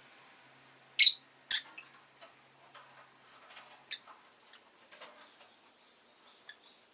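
Peach-faced lovebird giving two sharp, short chirps about a second in, followed by a run of soft, irregular ticks and clicks.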